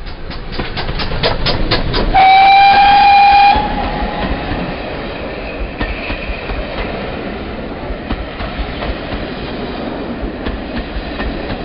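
GWR 5205-class 2-8-0 tank engine No. 5239 'Goliath' passing at close range, its exhaust beating sharply at about four or five beats a second. About two seconds in it gives one loud steam-whistle blast lasting about a second and a half. Its coaches then roll past, wheels clicking over the rail joints.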